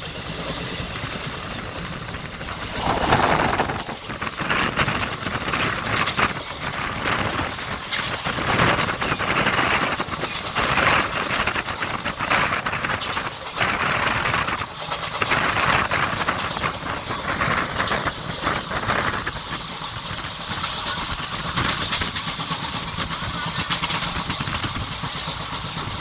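Moving express passenger train heard from on board: steady running rumble and hiss of the wheels on the track, with a long stretch of louder, uneven clatter in the middle.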